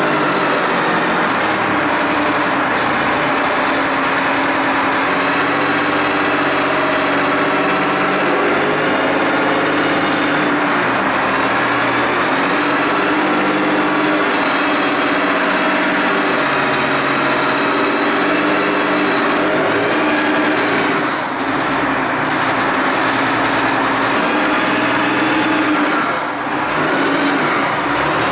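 Engine of an M113 armoured personnel carrier, a diesel of the kind used in combine harvesters, running steadily with its speed drifting slightly. Its level briefly dips twice near the end.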